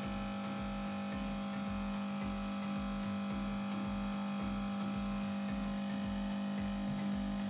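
Siemens EQ500 espresso machine's pump humming steadily while it pours espresso into the frothed milk for a cappuccino, with a low throb about twice a second.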